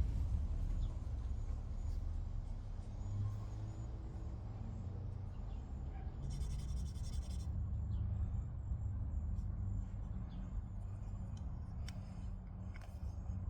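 Outdoor ambience with a steady low rumble, a brief rattling hiss about six seconds in, and a few faint clicks.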